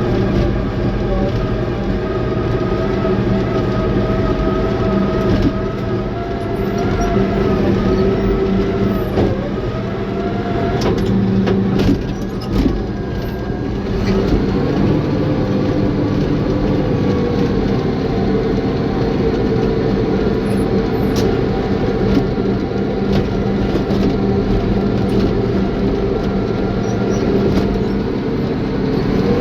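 Caterpillar bulldozer's diesel engine running steadily under load, its pitch sagging and recovering about ten to thirteen seconds in, with scattered clanks and knocks from the tracks and rock.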